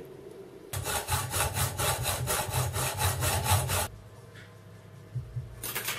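Small hand hacksaw cutting an aluminium strip: a run of quick, even back-and-forth strokes for about three seconds, which then stop. A brief few strokes follow near the end.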